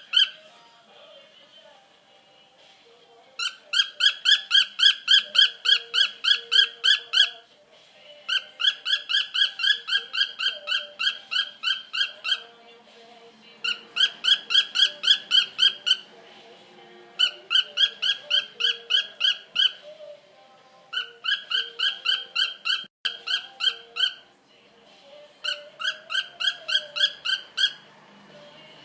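Cockatiel singing in rapid trains of short, even, whistled chirps, about seven a second. It sings six bouts of two to four seconds each, with short pauses between them.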